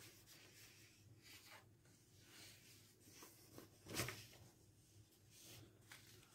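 Mostly near silence with faint rustling of paper sheets being handled and laid down, and one louder brief rustle about four seconds in.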